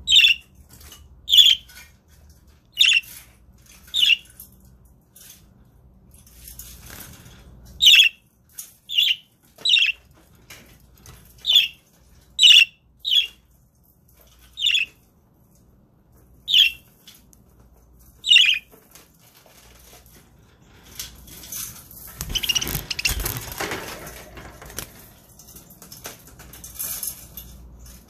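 Budgerigars giving about a dozen short, sharp chirps, spaced irregularly over the first two-thirds, then several seconds of rustling noise with no calls near the end.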